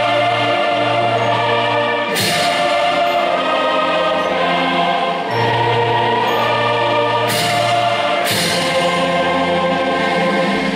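Background music: a choir singing held chords over a steady bass note, moving to a new chord about two seconds in and twice more near the end.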